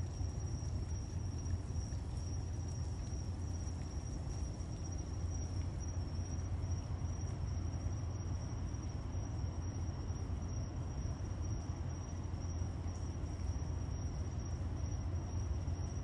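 Steady outdoor night ambience: a constant high-pitched trill of insects over a steady low rumble.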